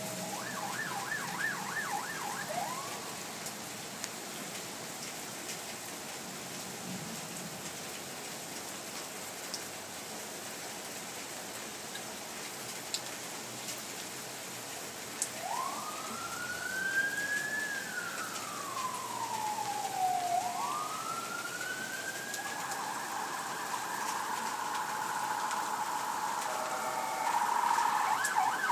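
Steady rain, with an emergency vehicle siren sounding through it. A fast yelp comes near the start, slow wails rise and fall from about halfway, and the siren switches back to a rapid yelp, growing louder, near the end.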